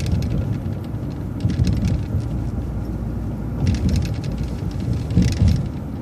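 Low, steady rumble of a city bus moving, heard from inside, with short rattles about one and a half, four and five seconds in.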